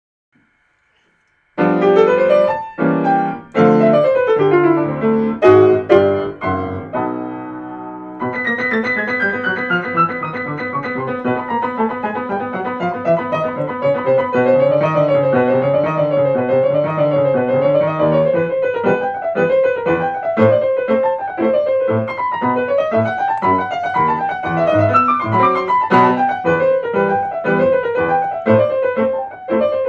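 Piano music: after about a second and a half of silence, a run of struck chords, then from about eight seconds in, fast rippling arpeggios sweeping up and down over held bass notes.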